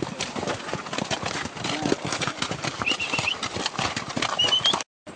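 Horses' hooves clip-clopping and knocking irregularly as they walk up a steep dirt trail. Two short high chirps come through partway along, and the sound drops out abruptly near the end.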